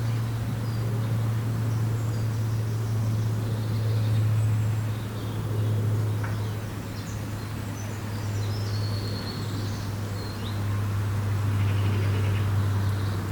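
Outdoor ambience by still water: a steady low drone that swells and eases slightly in loudness, with faint bird chirps here and there.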